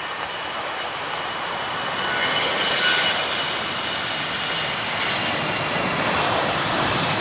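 Aircraft engines growing steadily louder as a plane approaches, a broad roar with a steady high whine over it.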